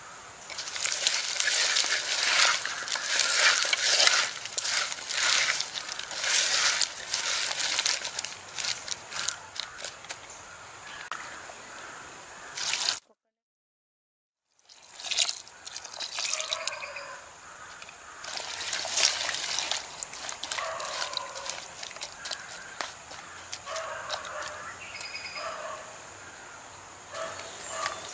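Jackfruit seeds being mixed by hand with spices in a pot: a busy rattling and scraping clatter of the hard seeds against each other and the pot. After a short break, liquid is poured over the seeds and hand-stirred, with wetter, squelching clatter.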